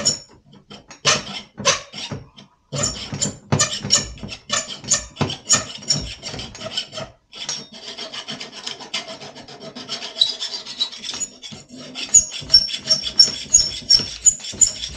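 Hand file rasping back and forth in a freshly ground slot in a metal part, dragged both ways at about two strokes a second, with a couple of short pauses, to clean up the cut.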